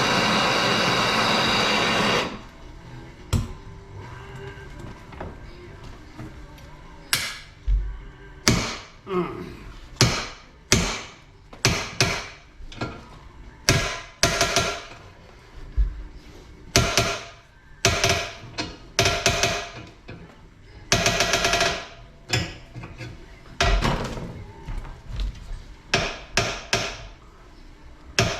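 Hammer blows on metal, sharp strikes with a brief ringing tail coming irregularly about once a second. Before them a loud steady hiss cuts off suddenly about two seconds in.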